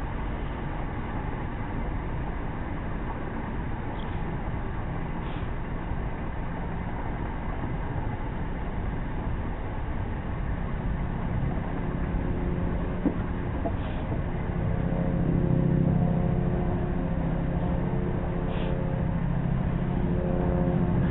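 Train running along the line, heard from beside the carriage side: a steady rumble of wheels on rail, with a diesel engine's pitched drone coming in about halfway through and growing louder. A few light high ticks break through now and then.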